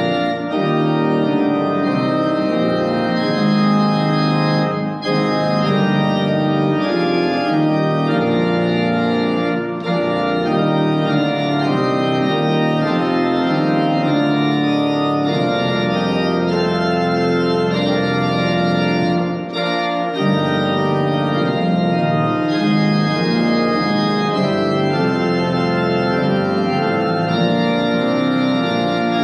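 Organ playing slow, sustained chords, with a few short breaks between phrases.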